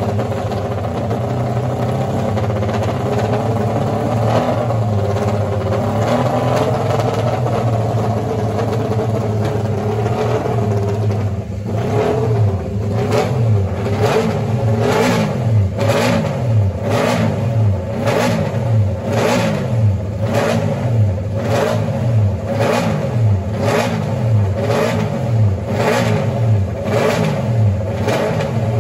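1972 MV Agusta 500/3's three-cylinder four-stroke racing engine on open megaphone exhausts, running at a steady fast idle while warming up. About halfway through it is revved in sharp throttle blips, roughly one a second, each rising and dropping straight back.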